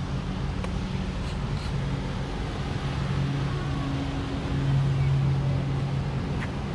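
A motorboat engine droning steadily across open water, a low hum that fades and returns every second or so. Low rumbling noise from wind on the microphone runs underneath.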